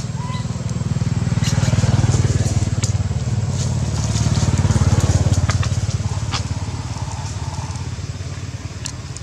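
An engine running with a low, rapid, even pulse, getting louder about two seconds in and again about five seconds in, with scattered crackles and clicks.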